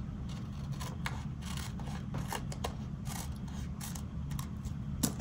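Scissors snipping through a paper sticker along a dotted line, in a series of short, irregular cuts; the sharpest snip comes at the very end.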